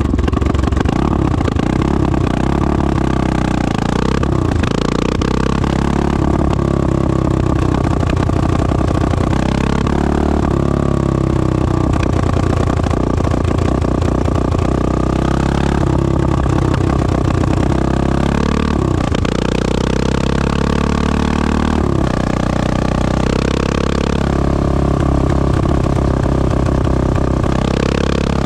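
1986 Honda XL600R's single-cylinder four-stroke engine running through a stainless Devil exhaust, its revs rising and falling several times.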